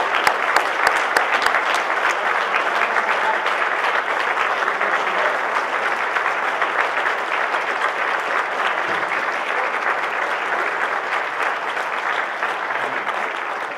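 Large audience applauding, dense steady clapping from many hands that eases slightly near the end.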